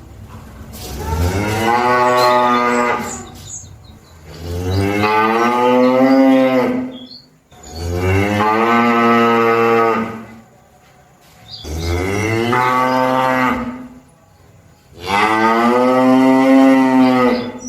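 Cattle mooing: five long, loud moos in a row, each lasting two to three seconds and rising in pitch at the start, with short pauses between them.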